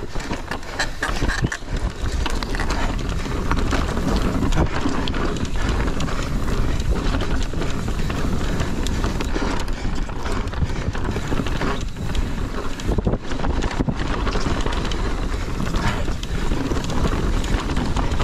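Mountain bike descending rough dirt singletrack at speed: a steady rumble of tyres over dirt, roots and rocks, with constant rattling and knocks from the bike. Wind buffets the microphone.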